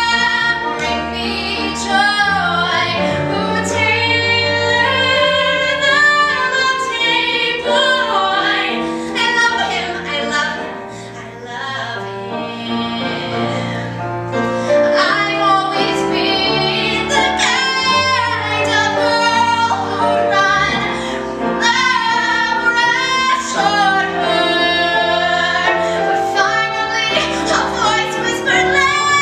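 A woman singing a solo cabaret show tune into a microphone, over a sustained instrumental accompaniment; the song softens briefly about a third of the way through.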